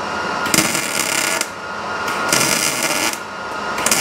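Welding arc crackling in short stitch-weld bursts on sheet-metal quarter panel, about three bursts of roughly a second each with brief pauses between; the last runs on past the end.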